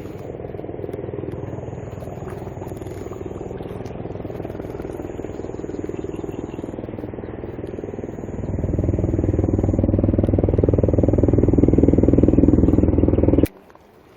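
Boat motor running steadily, then louder about eight and a half seconds in as it speeds up, cut off abruptly near the end.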